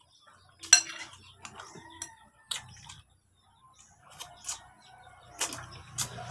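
Close-up eating sounds: scattered sharp smacks and clicks from eating food by hand, with a metal spoon clinking on the dishes. The loudest click comes just under a second in.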